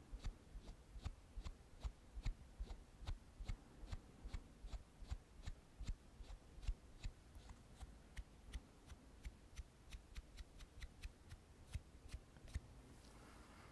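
Soft, sharp clicks and taps close to the microphone, about three or four a second and not quite even, from small objects being handled.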